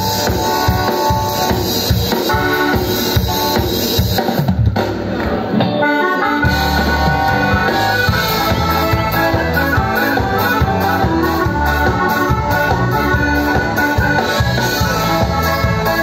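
A live band with accordion, electric guitars and drum kit playing with a steady beat, amplified through the stage PA. About five seconds in there is a brief break, and the full band comes back in about a second later.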